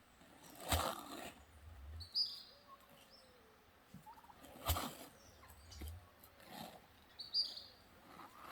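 Domestic turkeys gobbling, three loud rattling gobbles about four seconds apart, with short high-pitched calls in between.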